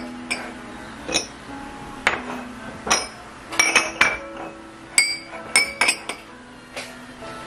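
Kitchenware clinking as a plate is handled and greased: about a dozen sharp, irregularly spaced clinks, each ringing briefly, with several close together in the middle.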